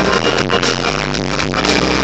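Live band playing electronic dance music at concert volume through a PA, heard from the audience: drum kit, electric bass and synthesizers in a steady dense groove.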